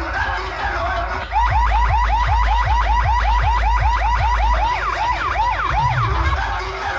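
Large DJ sound system playing a siren-like alarm effect: rapid repeating whoops, about five a second, slowing into wider up-and-down sweeps near the end, over heavy deep bass.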